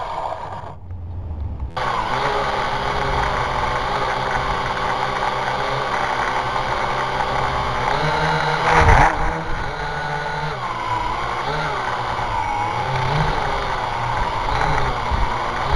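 Syma X8HG quadcopter's motors and propellers whining as it hovers, heard through its own onboard camera; the pitch wavers up and down as the motors change speed. It starts about two seconds in, and there is a short loud rush of noise about nine seconds in.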